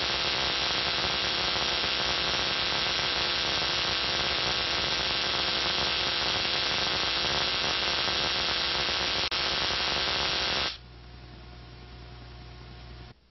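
Spark gap of a Lakhovsky multiple wave oscillator running: a loud, steady buzzing hiss over a mains hum. About ten and a half seconds in it drops suddenly to a quieter hum, which cuts off just before the end.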